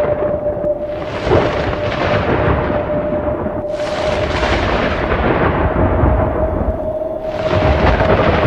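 Thunderclaps with long rolling rumbles: three crashes, about a second in, near the middle and near the end, each fading slowly, over a steady held tone.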